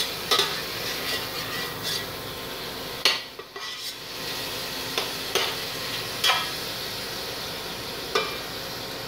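Pork cubes frying in melted butter in a stainless steel pot, a steady sizzle, while a metal spoon stirs them, scraping and clicking against the pot every second or so. The sizzle dips briefly about three seconds in.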